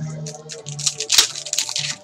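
Foil wrappers of football card packs crinkling and tearing in quick, irregular rustles as the packs are ripped open, with music playing underneath.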